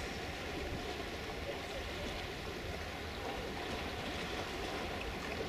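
Steady seaside background noise: an even hiss of wind and water, with no distinct event standing out.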